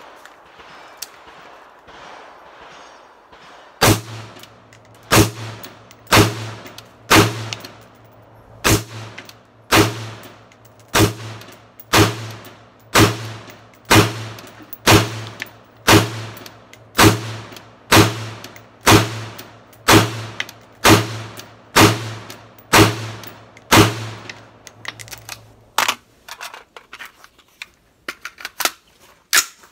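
Pistol shots at a shooting range, fired at a steady pace of about one a second, some twenty shots starting a few seconds in, each with a short ringing tail. A few fainter, quicker shots follow near the end.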